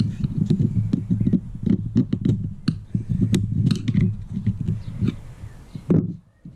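Hands working a steel pull-start recoil spring and its housing: irregular sharp clicks and knocks over rough scraping and rustling, which stop abruptly about six seconds in.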